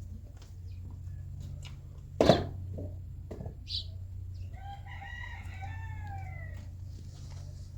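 A rooster crows once about five seconds in: one long call that rises and then falls. A loud sharp knock comes about two seconds in, over a steady low hum.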